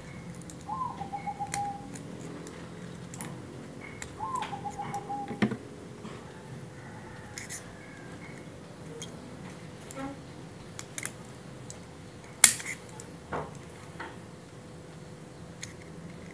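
Small sharp clicks and taps of metal tools and watch parts being handled, with one louder click about twelve seconds in. A bird calls twice early on, each a short trilled note lasting about a second.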